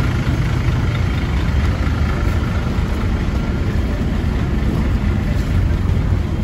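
Heavy diesel engines idling: a steady low rumble. It is heard alongside a large bus on a ferry's vehicle deck.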